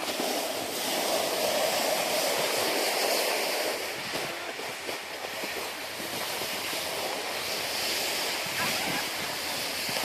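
Steady hiss of a rider sliding downhill over packed snow, with wind rushing across the microphone.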